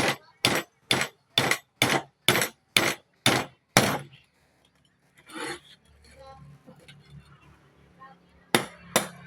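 Hammer blows struck at a steady pace of about two a second, nine in a row, then a pause and two more blows near the end, during motor rewinding work.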